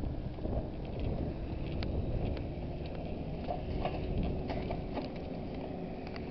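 Footsteps of a person walking, light taps about two a second, over a steady low rumble.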